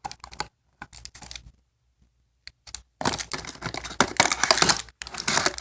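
Plastic packaging and blind-bag wrappers being handled: short clicks and rustles, a pause about a second and a half in, then steady crinkling from about three seconds in.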